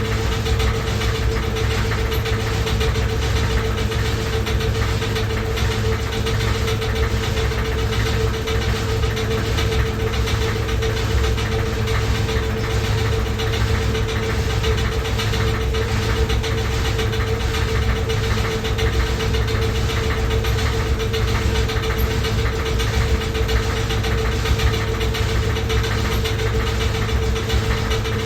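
Loud washing machine running: a steady mid-pitched hum over a low rumble, with a regular knocking rattle throughout.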